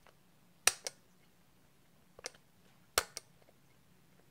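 Plastic grind-adjustment nut on a Porlex JP-30 ceramic burr hand grinder being turned by hand, clicking over the detent bumps in the plastic: three sharp clicks, each followed by a lighter tick. Each click is one step of the grind setting.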